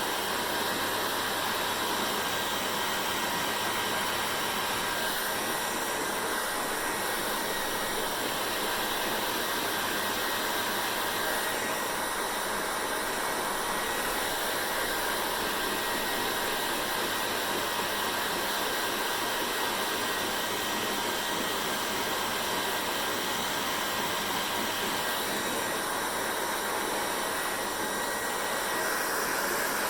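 Hair dryer running steadily: an even rush of blown air with a faint motor whine.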